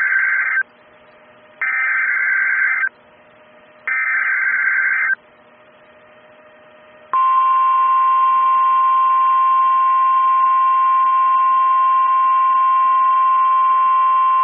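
Emergency Alert System SAME header: three short bursts of warbling data tones about a second apart, the first cut short at the start. About seven seconds in, the steady 1050 Hz NOAA Weather Radio warning alarm tone begins and holds.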